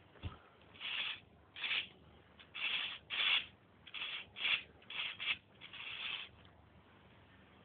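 Homemade Lego 4x4 vehicle driving in short rasping bursts, about nine of them at irregular spacing, as it tries to climb over a bunched cloth.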